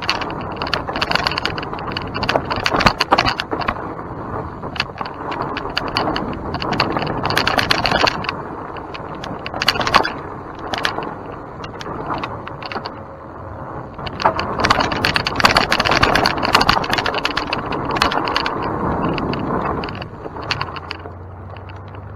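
Mountain bike ridden along a dirt trail: tyres rolling over dirt and stones, with the chain and frame clattering and rattling over bumps. It gets louder and quieter over rougher and smoother stretches, and settles down near the end.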